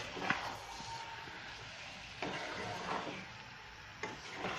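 A wooden spatula stirring raw chicken pieces through a thick masala in a metal pan: soft squelching and scraping, with a few sharper scrapes against the pan.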